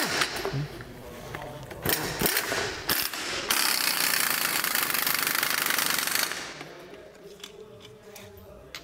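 An impact wrench undoing the top nut on a front strut's shock absorber rod, with the coil spring held in spring compressors: a few short bursts, then about three seconds of continuous hammering that stops suddenly.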